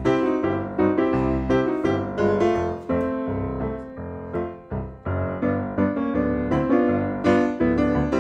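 Background piano music, with notes struck in quick succession throughout.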